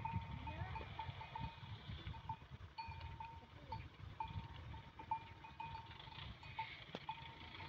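Bells worn by a walking herd of water buffalo and cattle, clinking irregularly two or three times a second over a low rumble.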